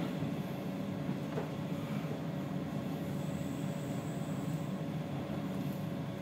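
Steady running rumble of a moving passenger train heard from inside the carriage, with a faint steady whine above it.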